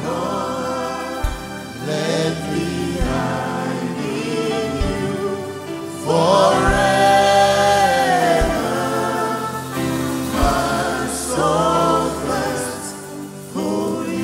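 Slow gospel worship song sung live by a male lead singer with two female backing singers, 'Oh Lord, you're my anchor… let me hide in you forever… my soul thirsts for you', over accompaniment with a soft low beat about every two seconds.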